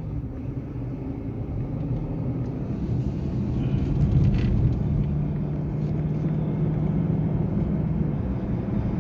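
Road and engine noise heard inside a moving car's cabin: a steady low rumble and hum that grows louder about three seconds in.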